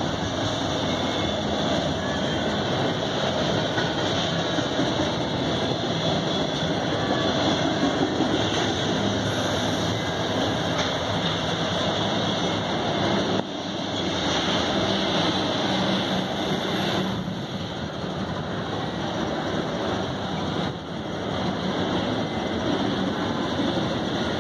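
Double-stack intermodal freight cars rolling steadily past, a continuous noise of steel wheels running on the rails.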